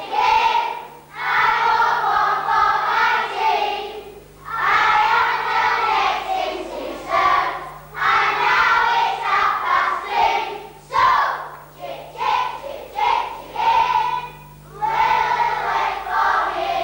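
A group of children singing a song together, line by line with short breaks between phrases. A faint steady low hum runs underneath.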